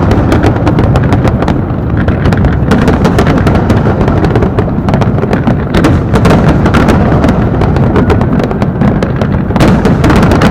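Fireworks going off in a dense, unbroken barrage: deep booms overlapping without a pause, with rapid sharp cracks and crackles on top. Very loud throughout.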